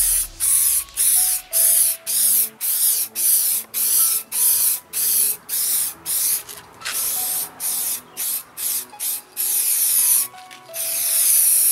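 Aerosol spray can of base-coat car paint spraying in a quick series of short hisses, about two a second, with a longer hiss near the end, over quiet background music.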